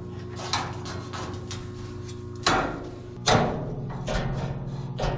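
Clamps being put on sheet-metal truck-bed panels: a handful of sharp metal clanks and clicks, the two loudest about halfway through, over a steady low hum.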